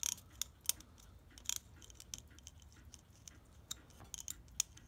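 Light, irregular metallic clicks and taps from a brass clock movement being handled while its mainsprings are oiled, a dozen or so sharp clicks unevenly spaced.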